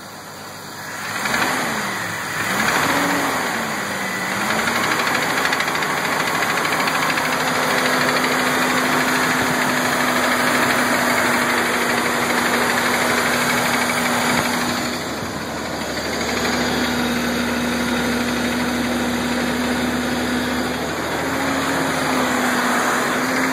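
Jeep Cherokee 4.0 straight-six engine, cold, blipped up and down twice and then held at a steady raised speed. The knocking that comes with revving is piston slap, which later broke a piston skirt on cylinder 5.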